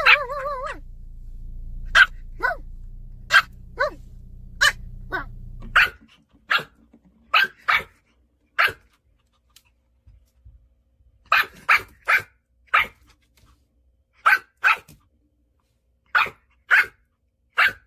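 Pomeranian puppy barking: about twenty short, high, yappy barks in uneven bursts, opening with one longer wavering bark-whine. A low hum runs under the first few seconds.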